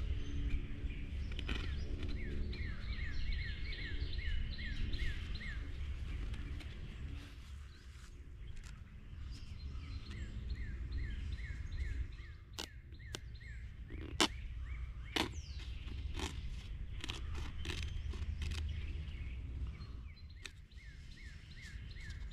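A pocket knife cutting through a folding stool's mesh fabric seat, with a few sharp clicks around the middle. A bird sings bouts of quick down-slurred whistles, about three a second, over a steady low rumble.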